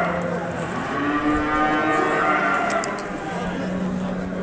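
Several cattle mooing, with long calls overlapping one another.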